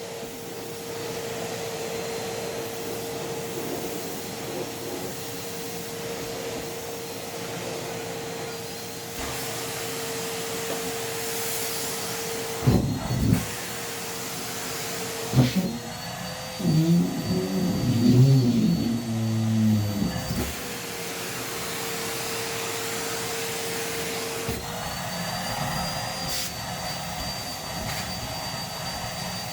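Numatic Hetty vacuum cleaner running with a steady motor hum and a high whistle. Twice, about halfway through, loud wavering low sounds break in as socks and feet block the hose, and near the end the motor note changes.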